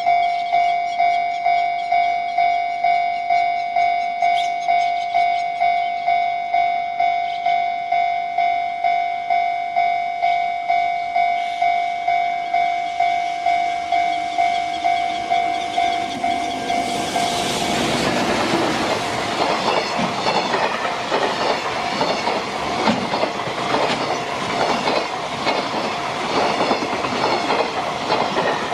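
Japanese level-crossing warning bell ringing, an electronic ding repeating about three times every two seconds. About 17 seconds in, a JR Freight train arrives and passes, its wagons' wheels clattering over the rail joints and drowning out the bell.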